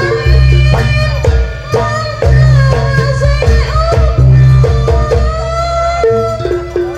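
Loud live Javanese folk music accompanying a Tari Buto dance: heavy, booming drum beats over and over under a melody line that bends in pitch, with steady higher struck notes.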